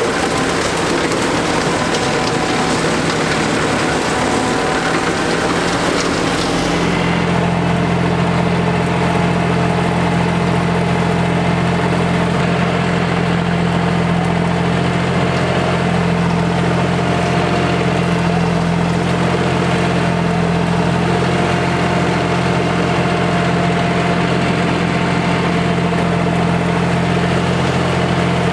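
John Deere 5075E tractor's diesel engine running steadily while it pulls an E12 rotary cutter slowly through thick brush. For the first seven seconds or so the engine is mixed with a broad hiss; after that its low, even hum stands out with much less hiss.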